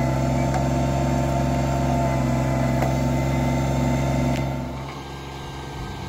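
Kubota BX25D compact tractor's three-cylinder diesel engine running at a steady speed, dropping about four and a half seconds in to a quieter, uneven rumble.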